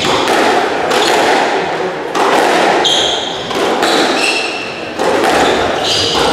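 Squash rally: the ball smacking off racquets and the court walls about once a second, with sneakers squeaking on the wooden floor.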